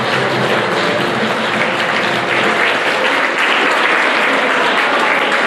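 Audience of schoolchildren applauding steadily after a dance performance.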